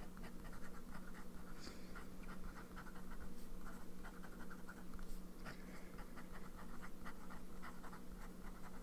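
Sailor Pro Gear Slim fountain pen's 14k gold medium nib writing on notepad paper: many short, irregular strokes of the nib scratching across the page, over a faint steady hum.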